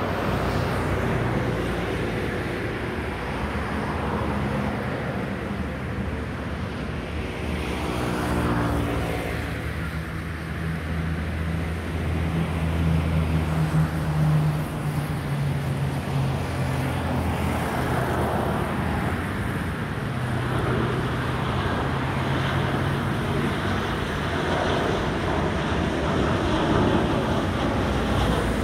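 Road traffic noise, with a vehicle passing in a falling pitch about eight seconds in. Under it, the engines of a Boeing 737-800 airliner on final approach grow somewhat louder near the end as the jet comes low overhead.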